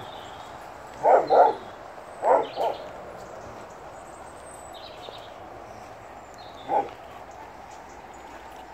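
Dogs barking in short, sharp barks: two quick barks about a second in, two more a second later, and a single bark near the end.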